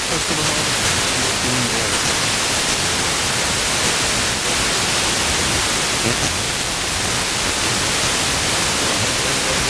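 FM radio static: a steady hiss from a Blaupunkt car radio tuned to 88.3 MHz, where a distant Norwegian station received by sporadic-E has faded down into the noise, leaving only faint traces of a voice under it.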